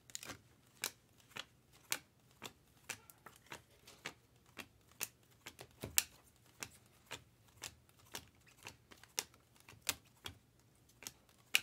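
2023 Topps Chrome Cosmic baseball cards being flicked through one at a time, the stiff chromium card stock giving a sharp click for each card. The clicks come unevenly, about two or three a second.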